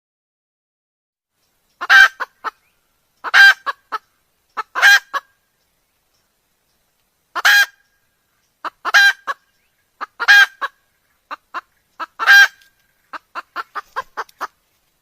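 Red junglefowl (wild chicken) calling. Seven loud, harsh calls, each followed by a few quick short notes, come at gaps of one to three seconds. A rapid run of short clipped notes ends the sequence.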